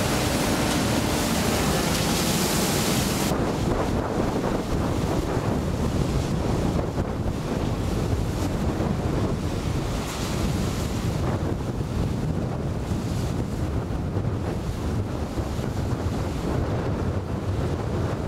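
Wind buffeting the microphone over the rush of waves and spray, with boats running at speed through choppy sea. The hiss thins out after about three seconds.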